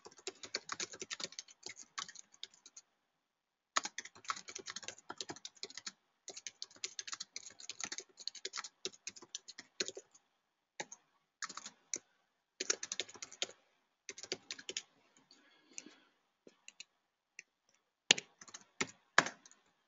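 Typing on a computer keyboard: runs of quick keystrokes broken by short pauses, thinning to scattered single keys for a few seconds near the end before a last quick run.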